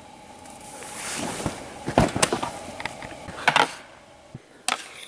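Scuffling and shuffling of a staged hand-to-hand fight, with several sharp knocks or blows, the loudest about two seconds in and again halfway through.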